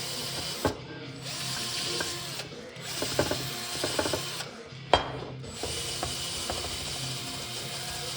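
Handheld rotary tool running against a workpiece in bursts, cutting out briefly several times, with a few sharp knocks, the loudest about five seconds in.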